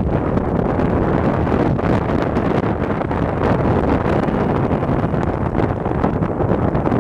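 Strong sea wind buffeting the microphone in a steady, heavy rumble, with waves breaking on the beach beneath it.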